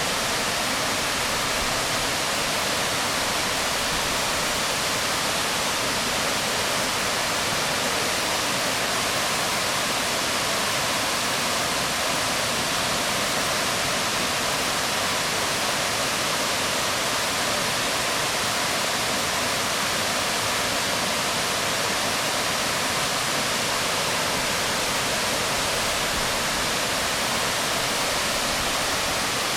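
Waterfall crashing steadily onto rocks: a continuous, even rush of falling water, unchanging throughout.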